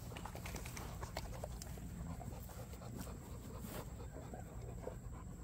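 Several dogs snuffling and pawing at a hole in dry dirt: faint scattered scrapes and sniffs.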